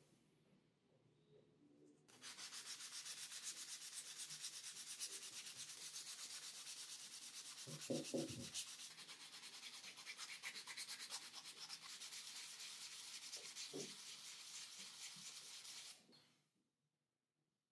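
Sandpaper wrapped on a block rubbed back and forth in quick, short strokes over the end of a wooden hammer handle, starting about two seconds in and stopping near the end. A brief low thump comes about halfway through.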